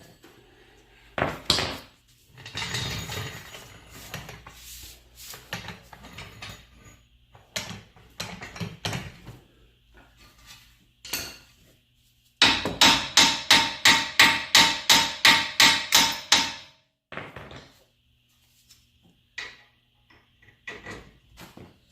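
Hammer blows on metal during a strut install: scattered knocks and tool clatter, then a steady run of about sixteen ringing strikes, about four a second, lasting some four seconds.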